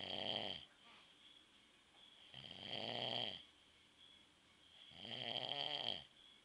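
A man snoring in his sleep: three snores, each about a second long, about two and a half seconds apart.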